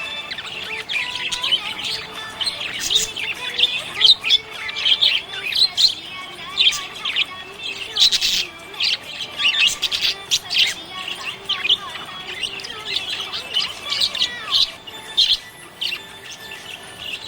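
Budgerigar chirping and warbling in a rapid, continuous run of short, high chirps.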